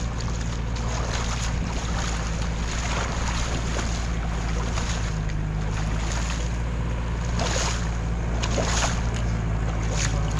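Shallow water sloshing and splashing as hands grope through moss and mud for catfish, over a steady low rumble.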